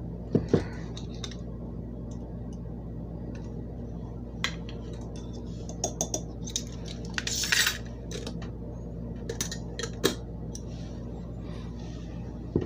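Clicks and clinks of a metal measuring spoon against a glass mason jar and the clamp lid of a ceramic canister as sugar is scooped out and tipped in, with a short scraping rush about halfway through. A steady low hum runs underneath.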